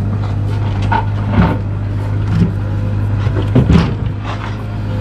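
A steady low motor hum, with a few sharp knocks of stones being dropped or tossed, the loudest about one and a half and three and a half seconds in.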